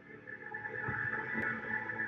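Ambient music score: layered, sustained drone tones that swell in loudness about a second in.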